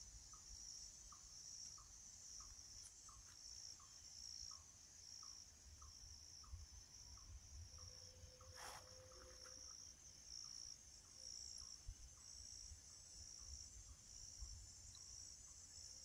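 Faint forest ambience: a steady, high insect chorus that pulses slightly, with a short call repeated about every half second below it and a single faint click about halfway through.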